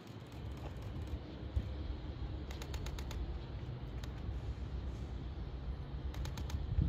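Low, steady rumble of a 205-series electric train approaching far off along the track, with two brief clusters of clicking, about two and a half seconds in and again near the end.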